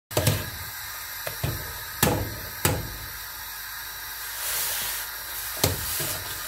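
Blueberry jam being made in the kitchen: a steady hiss like steam off the cooking pot, with several sharp knocks of kitchenware, the loudest about two and two and a half seconds in.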